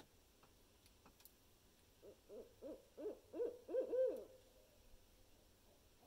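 Barred owl hooting: a quick run of about seven hoots, growing louder, ending on a longer drawn-out note.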